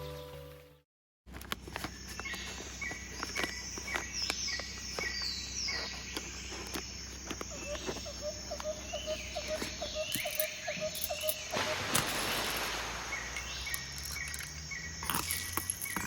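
Birds chirping and calling, with short repeated notes and quick falling whistles, over a steady outdoor background; a rapid trill runs for a couple of seconds about halfway through. A short piece of music fades out in the first second.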